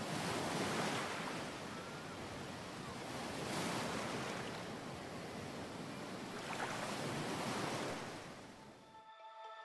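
Ocean surf washing in, swelling about three times a few seconds apart, then fading out near the end.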